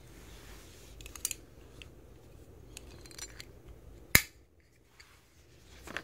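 Faint light clicks and handling noise from a fabric belt's metal clamp-on buckle being worked by hand, with one sharp click about four seconds in.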